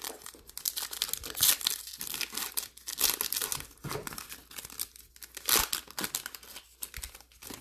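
Plastic wrapping of trading-card packs crinkling and tearing as it is handled, in irregular crackly bursts.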